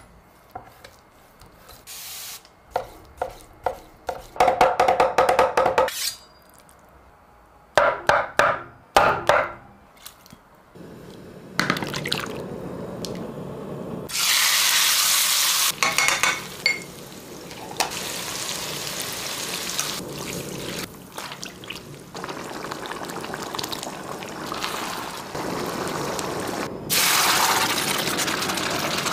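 Cooking sounds: a kitchen knife striking a wooden cutting board in quick runs of chops, then from about the middle a steady hiss of boiling, bubbling liquid. Louder rushes of pouring and stirring come about halfway through and again near the end.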